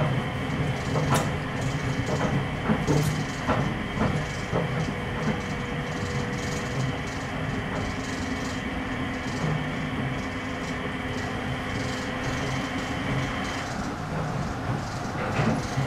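Running noise of a Nippori-Toneri Liner 300-series automated guideway train on rubber tyres: a steady motor whine and hum with a few sharp knocks in the first seconds. The higher whine drops away about 14 seconds in.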